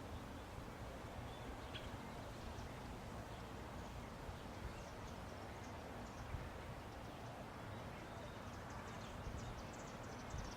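Quiet outdoor ambience: a steady low rumble with faint, short, high bird chirps, a few about halfway through and a small cluster near the end.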